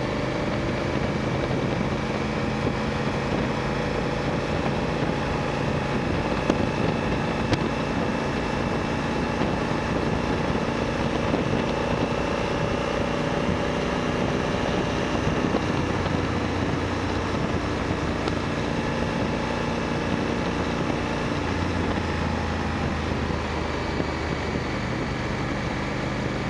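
Motorcycle engine running steadily under way, its pitch drifting gently with road speed, over a constant rush of wind and road noise.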